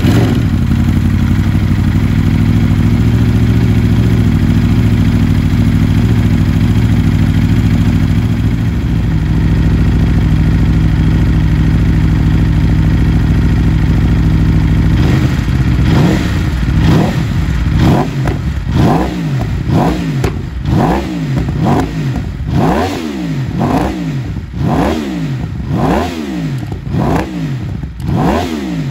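Aprilia RSV4 RR's V4 engine breathing through an RP Tuning aftermarket exhaust, just after a cold start. It idles steadily for about fifteen seconds. Then it is revved in short throttle blips, each a quick rise and fall in pitch, about once a second.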